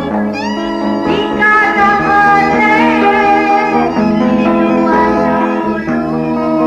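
Sumatran Minangkabau folk music from an old cassette recording: an ornamented melody full of sliding, bending notes over steady held accompaniment notes, playing without a break.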